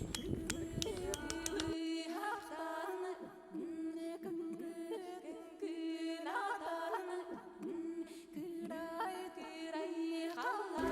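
Khomus (Yakut jaw harp) music: one steady droning note with an overtone melody that sweeps up and down above it.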